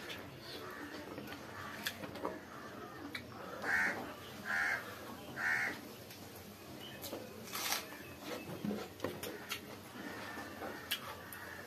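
A crow caws three times in quick succession, each call short and less than a second apart, a few seconds in. A sharp click follows a couple of seconds later.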